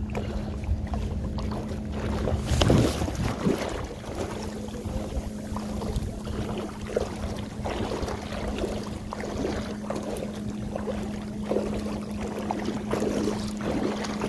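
A hooked bluefish splashing and thrashing at the water's surface as it is reeled in toward the shore, in short irregular splashes, with a louder burst about three seconds in. Wind rumbles on the microphone, and a steady low hum runs underneath.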